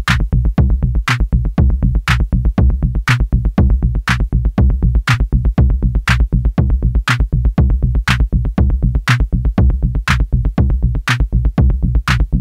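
Electronic music with a drum-machine beat: a steady pounding bass pulse and a sharp hit about once a second.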